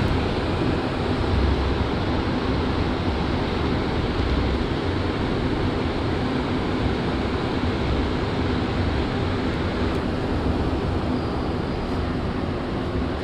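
Montreal Metro rubber-tyred train running through a tunnel, heard from inside a car: a steady, even rumble and rushing noise, strongest in the low range.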